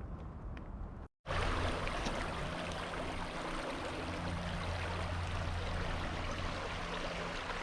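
A creek's running water, a steady rush that comes in abruptly after a short break about a second in. Before the break there are a few faint footstep-like ticks.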